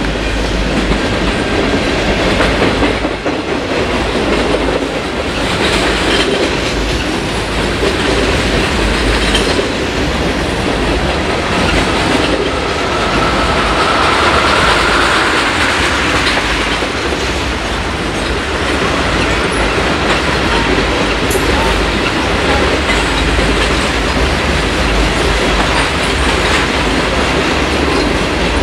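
Freight cars rolling past close by: a steady rumble of steel wheels with clickety-clack over the rail joints. About halfway through, a faint wheel squeal rises slightly in pitch for a few seconds.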